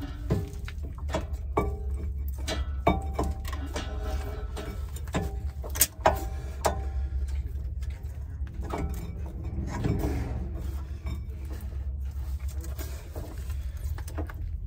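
Hand wrench clicking and clanking against a rusty disc brake caliper and bracket as the bolts are worked loose, with short metallic rings and one sharp clank about six seconds in. The bolts are stubborn and need lubricant.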